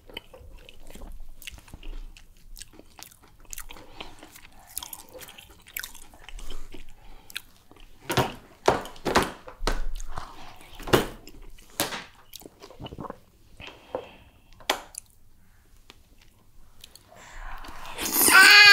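Close-miked ASMR eating of fufu with egusi soup: irregular wet chewing and sticky mouth clicks, most dense a little before the middle. Near the end comes a short hummed vocal sound, the loudest moment.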